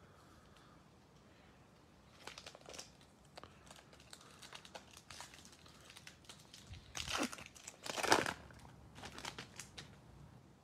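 A Topps baseball card pack's wrapper being torn open and crinkled by hand. It is quiet for the first two seconds, then gives a run of short crinkles, with the loudest tearing and crinkling about seven to eight seconds in.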